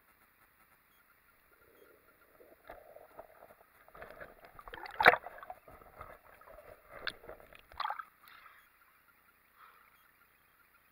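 Water sloshing and splashing against a handheld camera as a snorkeler moves underwater and surfaces, with a sharp knock about halfway through and two smaller splashes a little later.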